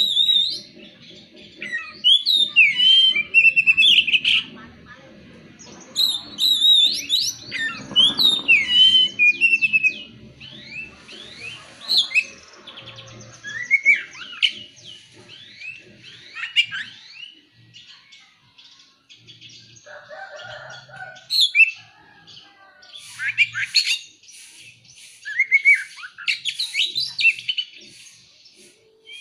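Oriental magpie-robin singing: bursts of quick, varied whistled phrases with sweeping notes, separated by short pauses.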